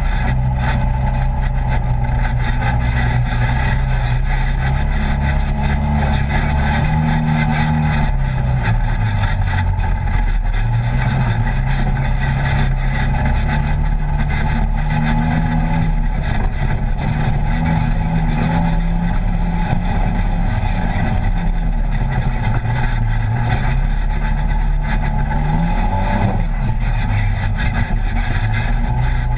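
Polaris RZR side-by-side engine running under way, its pitch rising and falling as the throttle is worked along a dirt trail, with a dip in revs about a third of the way in and another near the end, over a steady rush of wind and road noise.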